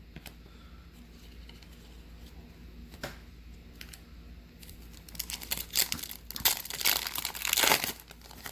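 Foil wrapper of a baseball card pack being torn open and crinkled. Fairly quiet at first with a single tap about three seconds in; the tearing and crinkling come in the last three seconds.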